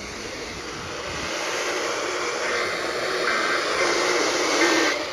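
NOAA Weather Radio reception static, a steady hiss that grows louder, with faint warbling EAS digital data bursts (SAME tones) coming through from about halfway in.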